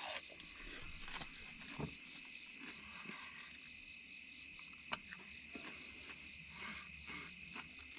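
Steady high-pitched chorus of night insects, with faint chewing and handling noises and one sharp click about five seconds in.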